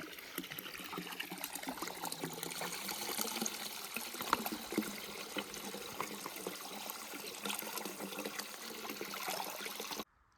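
Water of a small stream trickling and splashing steadily, stopping abruptly near the end.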